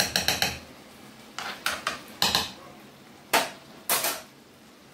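Metal spoon clinking against a frying pan: a quick run of about four taps at the start, then a few separate clinks and short scrapes.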